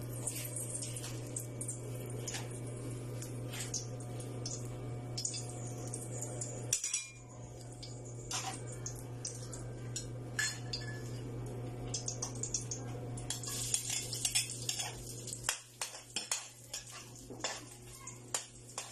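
Metal cooking utensils clinking and tapping against a pan, in quick irregular strikes that grow busier in the second half, over a steady low hum.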